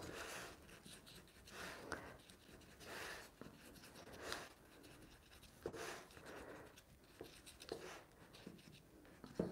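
Faint, irregular soft rubbing and scuffing of fingertips pressing the shortcrust pastry edge down against the inside wall of a metal tart pan, with a few small clicks.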